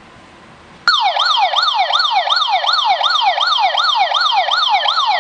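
eMastiff PIR motion-detector alarm's siren going off about a second in: a loud electronic wail that sweeps in pitch over and over, about three sweeps a second. It is the alarm triggered by motion once alarm mode is armed.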